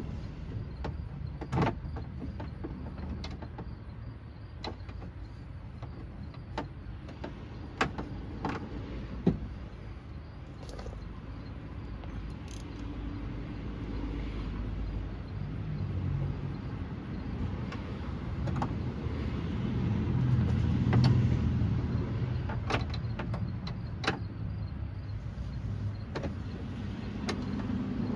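Scattered metallic clicks and clinks of a ratchet and socket working inside a 2001 Chevrolet Blazer's door panel, trying to thread the loose door-handle bolt back in. A low rumble swells up about halfway through, loudest around two-thirds of the way in, then eases.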